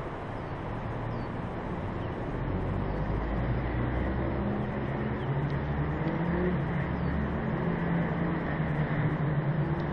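Kawasaki Z750's inline-four engine running at low revs as the motorcycle rolls slowly, with wind and road noise over it. The engine note grows gradually louder.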